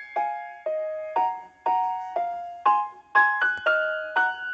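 Background music: a gentle melody on piano, single notes struck about twice a second, each one fading before the next.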